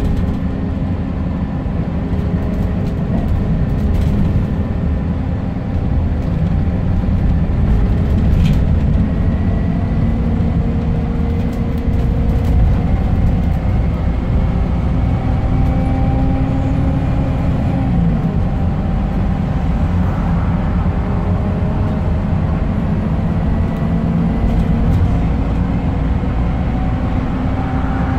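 Scania K270UB bus's rear-mounted five-cylinder diesel engine and driveline heard from inside the passenger cabin, pulling under load with a steady rumble and a whine that rises as the bus gathers speed. The pitch drops once, past halfway, at a gear change, then climbs again.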